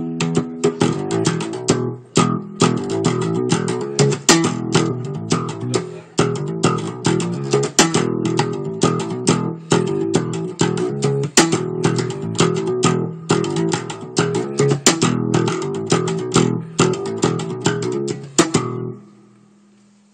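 Guitar music with a bass line: plucked notes in a quick, steady rhythm. It stops suddenly near the end.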